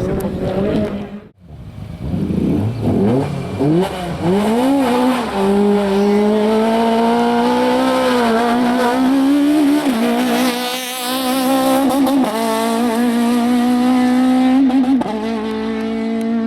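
Citroën AX Kit Car rally car engine revving hard, its pitch climbing and then held high and steady, with several brief dips as the driver shifts or lifts. There is a short dropout about a second in.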